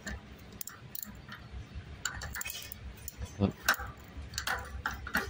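Irregular metallic clinks and jangles of a removed 8-speed bicycle freewheel's steel cogs being handled, the parts knocking against one another and against tools.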